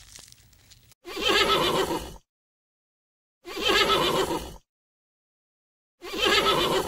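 An animal call: the same roughly one-second cry comes three times, about two and a half seconds apart, with dead silence between, the last running just past the end.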